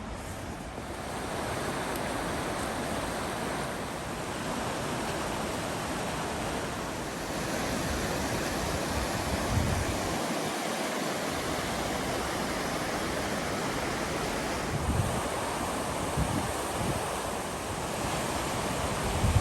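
Strong wind rushing steadily through the winter woods, with gusts buffeting the microphone in low thumps several times in the second half.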